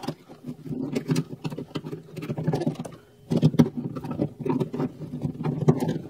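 Screwdriver prying and working back and forth against the metal retaining clip of a door lock cylinder inside a truck door: irregular scraping and light metal clicks and rattles, with a short pause about halfway through.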